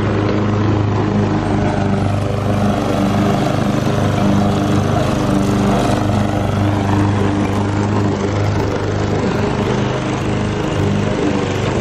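Gas walk-behind rotary lawn mower running steadily while cutting grass.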